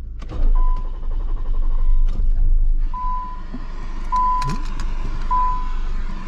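Nissan Gloria's starter cranking the engine on power from a jump pack, without it catching, while a dashboard warning chime beeps about once a second.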